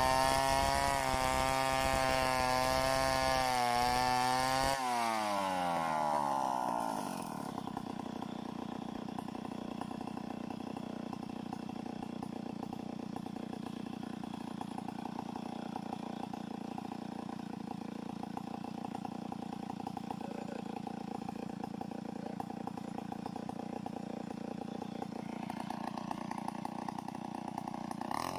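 Two-stroke chainsaw ripping a mahogany log lengthwise under full throttle, then released about five seconds in so the engine winds down to idle. It idles steadily for about twenty seconds, then revs back up near the end as the cut resumes.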